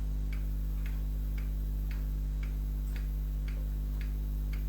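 Faint, even ticking about twice a second over a steady low hum.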